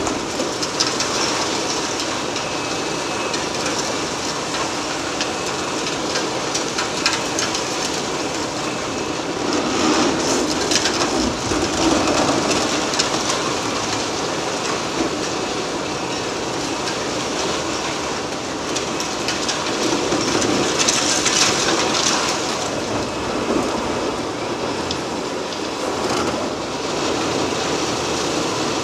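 Liebherr R 980 long-front demolition excavator at work on a building: a dense, continuous crackle and clatter of breaking concrete and falling rubble, which swells twice.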